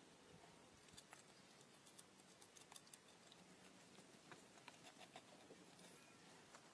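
Near silence, with faint scattered clicks and light scratches, thickest about two to three seconds in and again about four to five seconds in.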